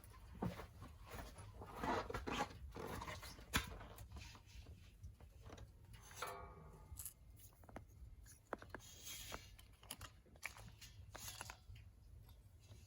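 Rustling, crunching and tearing handling noises, with scattered light clicks and knocks, as food and cookware are handled for cooking.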